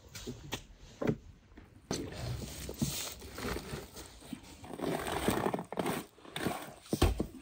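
Handling noises as a spit-roasted whole lamb is worked off its wooden spit onto a lavash-lined wooden platter: lavash flatbread rustling and crinkling against the meat, scrapes and knocks, and a thump near the end.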